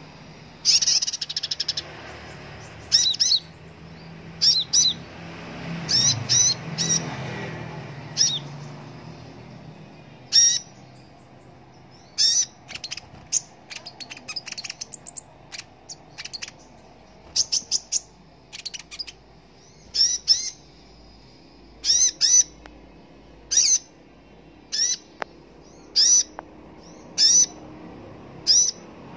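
Male Van Hasselt's sunbird giving sharp, high chirps, singly and in quick clusters of two or three, every second or two.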